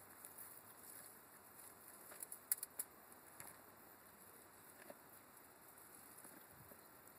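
Near silence with a faint rustle, broken by three quick, sharp clicks about two and a half seconds in.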